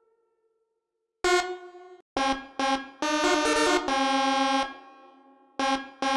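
Telolet bus-horn tune: a run of short air-horn notes at several pitches, some sounding together as chords. A longer chord is held about three seconds in, followed by two short toots near the end.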